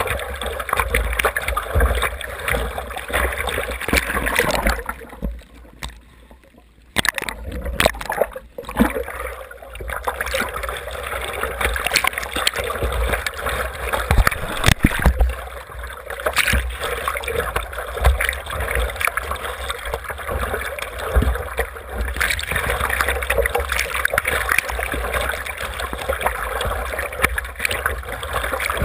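Seawater splashing and gurgling around the nose of a surfboard as it is paddled along, heard from a camera mounted low on the board, with a low rumble underneath. About five seconds in, the splashing drops away for a couple of seconds before picking up again.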